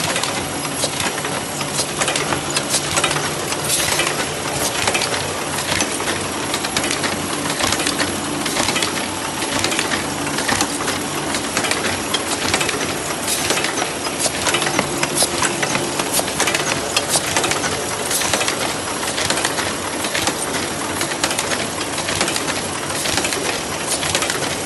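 Brehmer 381/3 thread book-sewing machine running, a fast, steady metallic clatter of clicks over a low hum from its drive.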